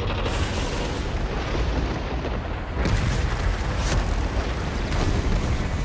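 Action film trailer sound design: a dense, loud rumble with explosion booms under the score, and sharp hits about three, four and five seconds in.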